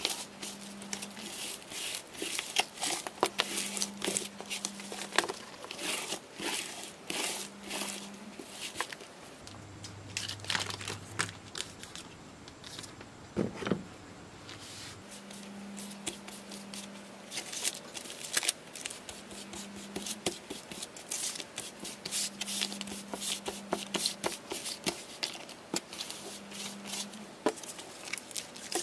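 Cloth rubbing, with crinkling and scraping as a long wrapped strip is wiped and handled by hand: many short scratchy strokes, quieter for a few seconds in the middle, with one sharp knock.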